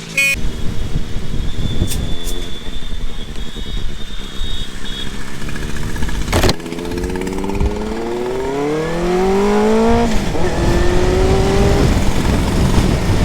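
Benelli motorcycle accelerating on the road, with heavy wind rushing over the microphone. The engine note climbs steadily for a few seconds, then drops at a gear change about ten seconds in and runs on steadily.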